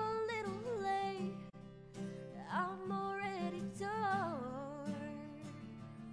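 A woman singing long, sliding held notes over a strummed acoustic guitar; the voice drops away about four and a half seconds in, leaving the guitar.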